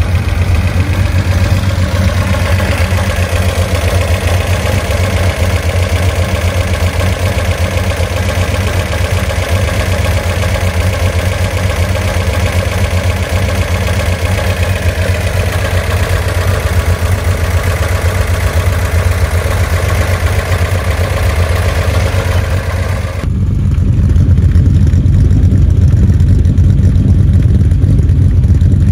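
Nissan Skyline C10 'Hakosuka' straight-six, fed by three sidedraft carburettors, idling steadily, heard first at the open engine bay. About 23 seconds in, the sound changes abruptly to the deeper, louder exhaust note at the twin tailpipes.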